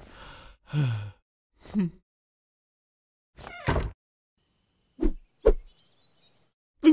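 A string of short cartoon sound effects and vocal noises: a falling grunt-like sound about a second in and another just before two seconds, a wide burst a little past halfway, and two short dull thumps near the end.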